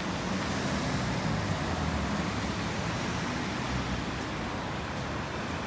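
Street traffic noise: the low hum of a motor vehicle's engine, fading about halfway through, over a steady hiss of road noise.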